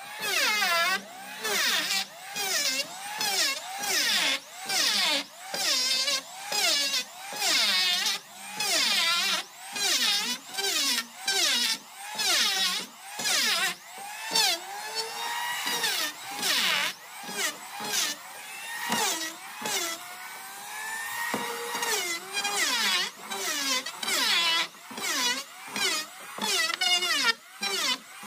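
Handheld electric power tool smoothing the wooden hull planks of a boat in quick, short repeated passes: the motor's whine sags in pitch each time it bites into the wood and climbs back between strokes, a bit more than once a second.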